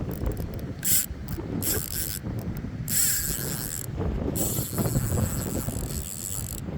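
Fishing reel being worked while a barbel is played, its mechanism whirring and ratcheting in repeated short runs, over steady low wind rumble on the microphone.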